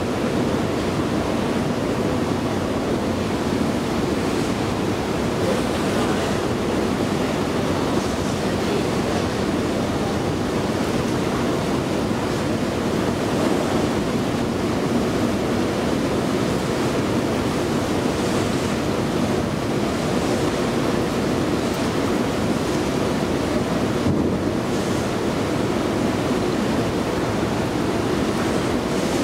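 Steady, even running noise of a long KONE escalator being ridden: a continuous rumble and hiss from the moving steps and handrail, with no distinct clicks or knocks.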